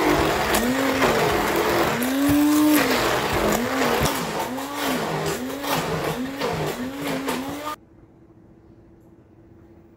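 Hand-held immersion blender running in a glass bowl of thick batter, its motor pitch rising and falling over and over as it is worked through the mix. It cuts off suddenly near the end.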